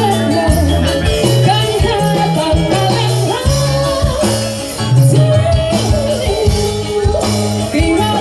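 Live jaranan campursari music from a Javanese ensemble: repeating low bass notes and a wavering melody line over steady percussion.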